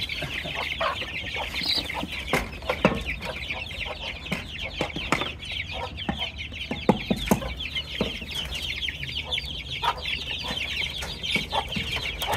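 A coop full of hungry chicks and young chickens peeping nonstop in a dense, high-pitched chorus. Scattered knocks and clicks come from the wooden coop door and latch being handled.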